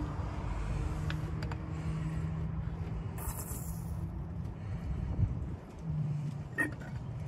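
Turkey baster drawing old fluid out of a power steering pump reservoir, with a short hiss about three seconds in and a click near the end, over a steady low hum.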